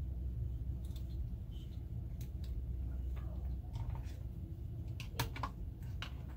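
Scattered light clicks and taps as an AR-15 pistol grip is worked off the lower receiver, with a sharper cluster of clicks about five seconds in, over a low steady hum.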